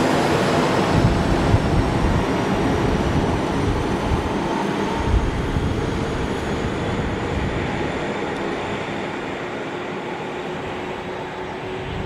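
Matterhorn Gotthard Bahn train with a Deh 4/4 electric baggage railcar running past and away on metre-gauge track: wheels rumbling and knocking on the rails, with faint whining tones, the whole sound slowly fading as it recedes.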